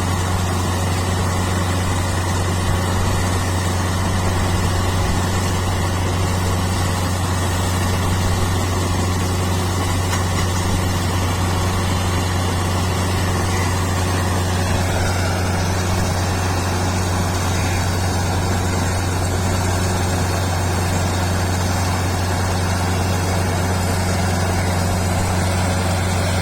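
Kubota rice combine harvester's diesel engine running steadily with a strong low hum. A thin higher whine in the machine's sound drops in pitch about halfway through.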